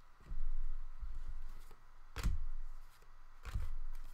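Handling noise from trading cards and card packs being worked on a table: four dull thumps, the loudest with a sharp click about two seconds in, and light rustling between them.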